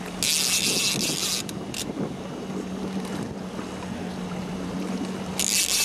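A fishing reel's drag buzzing twice, each time for about a second, near the start and again near the end, as the hooked king salmon pulls line off. A steady low hum from the boat's motor runs underneath.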